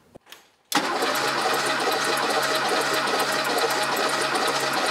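Porsche 911 Turbo 3.3-litre air-cooled flat-six cranking over on its starter with the spark plugs removed, for a compression test of cylinder number 2. It starts about a second in and keeps up a steady, evenly pulsing churn without firing.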